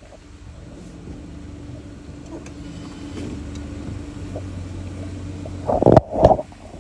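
A car's engine running at idle, a steady low hum that comes up about a second in and grows a little louder, with two loud knocks close together near the end.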